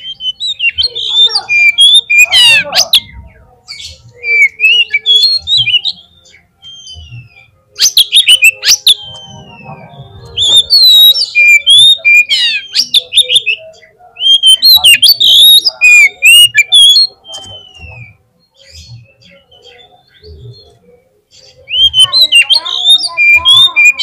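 Oriental magpie-robin (kacer) singing: about six loud bursts of rapid, varied whistles and chattering notes, with pauses of a second or more between them and a quieter stretch about two-thirds of the way in.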